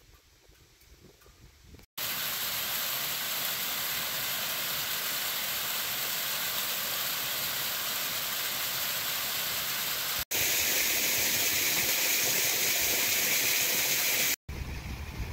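Steady rushing of water spilling over rocks in a small woodland creek cascade, starting suddenly about two seconds in. After a brief cut near ten seconds, another steady rush of similar, slightly brighter noise follows until another cut near the end.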